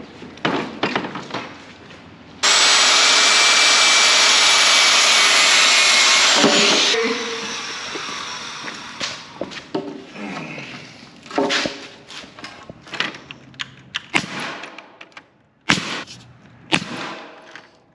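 Power saw starting abruptly about two and a half seconds in, running loud and steady with a high whine for about four seconds, then winding down. Knocks and clatter of handled material come before and after it.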